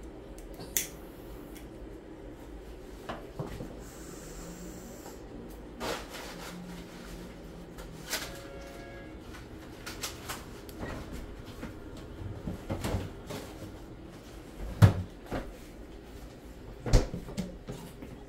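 Scattered knocks and clicks of kitchen work: cookware and cupboards being handled, with two louder thumps near the end.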